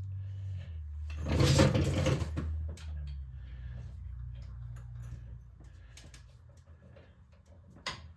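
Hand tools working on a tractor axle hub: a loud scraping rattle lasting about a second, then scattered clicks with a sharp click near the end, over a steady low hum.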